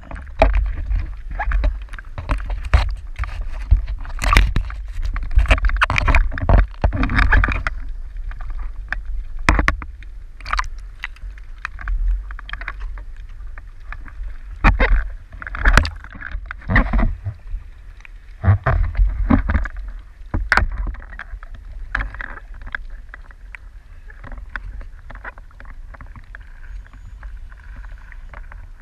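Small ocean waves lapping and splashing against a camera held at the water's surface: irregular slaps and sloshes over a steady low rumble of moving water.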